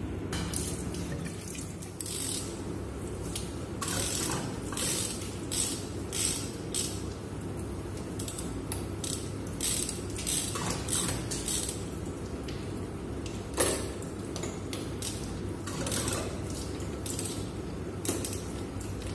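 Socket ratchet wrench clicking in short, irregular bursts as it turns the flange bolts on a chilled-water line strainer, with one louder metallic knock about two-thirds of the way through. A steady low hum runs underneath.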